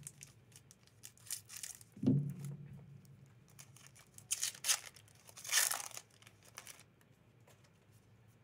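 A Masters 25 booster pack's foil wrapper being torn open and crinkled by hand, in several short ripping bursts, the longest about five and a half seconds in. A soft thump comes about two seconds in.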